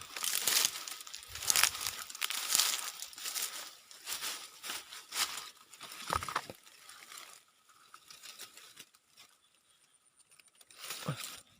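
Rustling and crinkling handling noise that is dense and busy for about seven seconds, then thins to a few faint crackles, with a brief louder rustle near the end.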